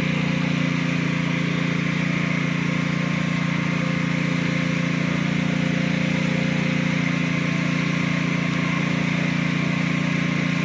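Small engine of a motorized spray pump running steadily at one constant speed.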